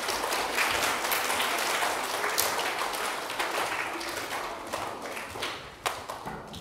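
Audience applauding, dense clapping at first that thins out toward the end.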